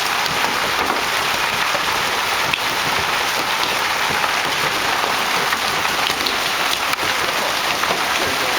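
Heavy rain pouring down, a dense, steady hiss of water beating on surfaces.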